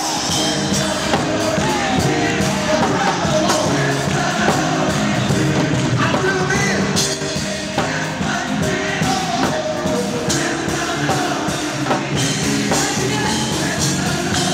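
Gospel music with singing, a full band and a drum kit keeping a steady beat.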